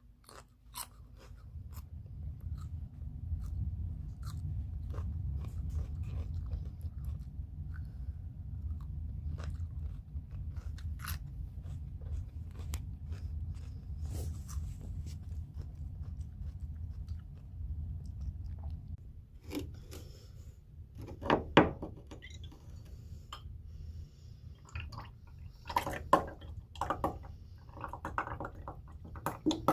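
Close-miked chewing and crunching of food, with many small mouth clicks and a few louder sharp sounds about twenty-one seconds in and again near the end.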